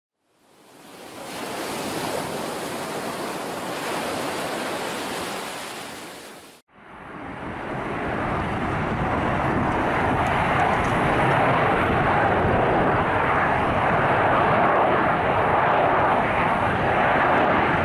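Jet roar of an F-35B Lightning II's single F135 turbofan engine. It fades in, breaks off suddenly about six and a half seconds in, then comes back as a louder, steady roar that builds slightly toward the end.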